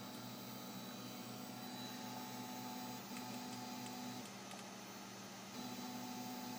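Stepper motor of a Cobblebot Little Monster 3D printer driving the Y-axis bed, a steady whine that stops briefly just after 3 s, drops away for about a second from about 4 s, then starts again. It runs smoothly with no skipping or jumping, a sign that the stepper drivers, retuned to a lower voltage, are no longer overheating.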